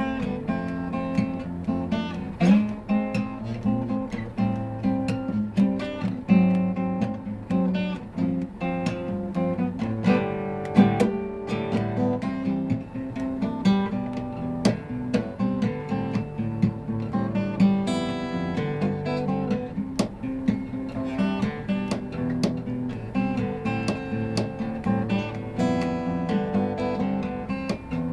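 A cutaway acoustic guitar played solo, plucked notes and chords in a continuous flow, with melody notes moving above steadier low notes.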